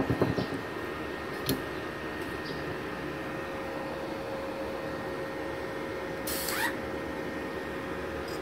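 Multipro MIG/MMA/TIG 160 A-SC inverter welding machine running at idle: a steady hum with a faint high whine, a click about a second and a half in and a short swish about six seconds in.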